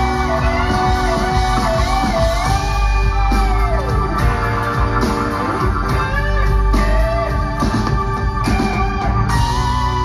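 Rock band playing live in an instrumental passage: a lead electric guitar plays a melody with bent, wavering notes over sustained keyboard chords and bass. About nine seconds in, it settles on a long held note.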